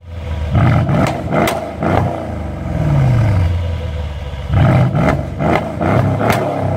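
Mercedes-AMG GLE 63 S's M157 twin-turbo V8 revved while standing still: a quick series of sharp throttle blips, the revs falling back to idle, then a second series of blips near the end.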